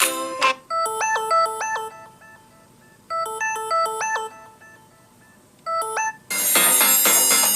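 Samsung Galaxy S20 stock ringtones. A short melody of bright notes plays twice, with a pause between. Then a fuller, louder ringtone starts about six seconds in.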